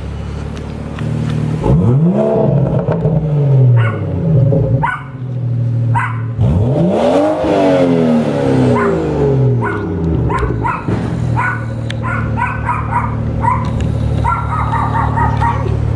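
2018 BMW 340i's turbocharged B58 inline-six, fitted with an Agency Power intake, revved twice from idle, each rev climbing quickly and falling back over a couple of seconds. It idles for the rest of the time while a dog barks repeatedly in the second half.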